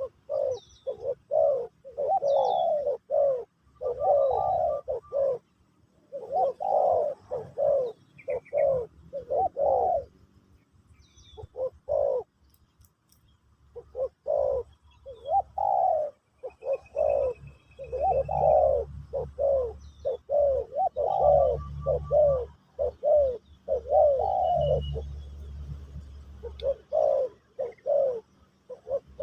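Spotted dove (terkukur) cooing in repeated phrases of short, low notes, with brief pauses between phrases. Faint high chirps of small birds are heard behind it, and a low hum joins about two-thirds of the way in.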